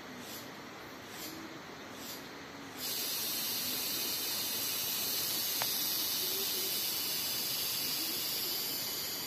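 Forest insects calling: a high chirp pulsing about once a second, then about three seconds in a loud, steady high-pitched buzz starts suddenly and holds. It is the kind of insect call that gets mistaken for a motorbike.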